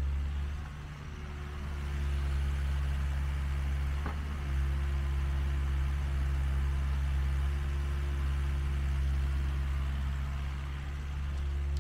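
Compact excavator's diesel engine running steadily while working, a low hum with a steady higher tone over it. The higher tone drops out briefly about a second in and again near four seconds, with a faint knock at the second break.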